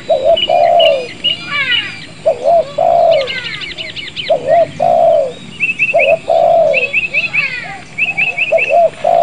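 A mockingbird imitating a car alarm: a two-note phrase repeated about every two seconds, with high chirping trills and short rattles between the repeats.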